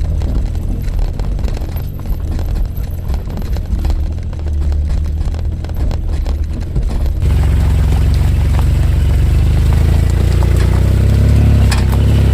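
Suzuki Jimny running, a steady low engine and drivetrain rumble that abruptly grows louder and fuller about seven seconds in, with a few sharp clicks or rattles near the end.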